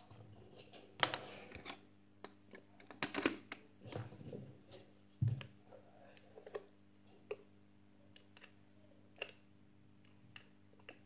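Handling noise from a Pepe Jeans Bluetooth speaker and a charging cable: scattered clicks, taps and scrapes as the plug is fumbled at the charging port, which is hard to get in.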